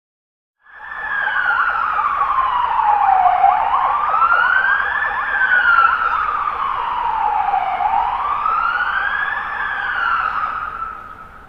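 Police siren in a slow wail, its pitch sweeping down and back up twice, each cycle lasting about four and a half seconds. It starts suddenly about a second in and fades out near the end.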